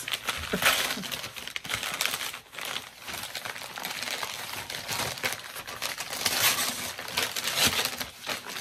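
Packaging crinkling and rustling as a package is handled and opened, with many short crackles and taps.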